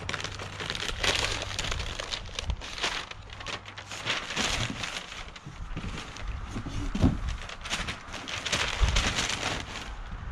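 Brown packing paper rustling and crinkling in short, irregular bursts as it is pulled off and pushed around sections of metal stove pipe, with a single knock about seven seconds in.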